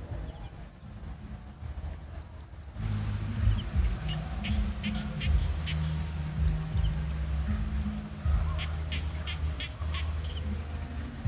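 Crickets trilling steadily with a high, pulsing chirr. About three seconds in, background music with low bass notes comes in under it.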